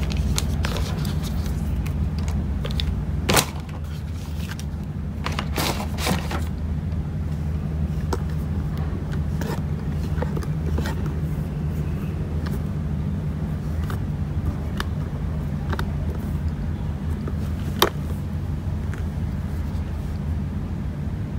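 A steady low rumbling hum, with a few sharp clicks and taps as the phone is handled: one about three seconds in, a cluster about six seconds in, and one near the end.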